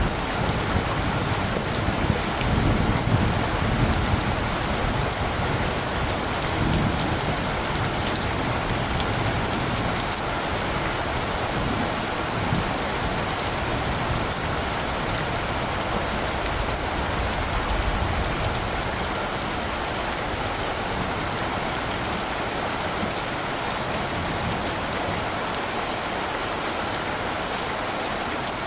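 Steady rain falling, a dense even patter throughout. A low rumble of distant thunder is heard during the first several seconds and dies away.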